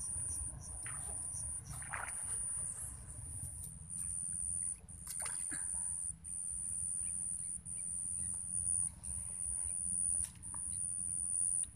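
Outdoor ambience: a low wind rumble on the microphone under a steady high-pitched whine that drops out briefly several times, with a few faint, brief sounds.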